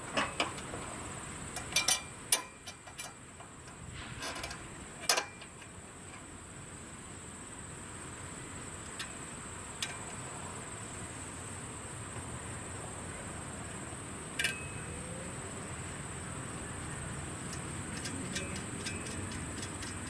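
Scattered sharp clicks and knocks of stovepipe parts being fitted together, clustered in the first five seconds, with a couple of single knocks later. Under them a faint steady hiss and a thin high whine.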